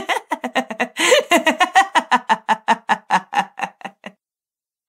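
A man's voice laughing in a fast, even run of short "ha" bursts, about six a second, that fades and stops about four seconds in.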